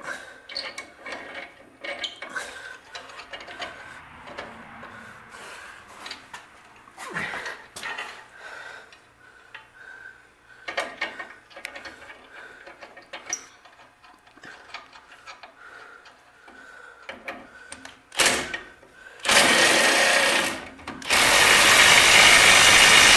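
Small metal clinks and knocks of a bolt being fitted by hand through a trailing-arm mounting bracket. Near the end, a cordless impact driver with a socket extension runs the bolt in while a wrench holds the nut: a brief blip, then a run of about a second and a half, then a longer, louder run of about three seconds.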